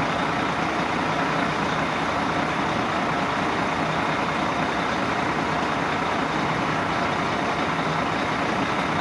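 Refuse lorry's diesel engine idling, a steady, unbroken noise with no change.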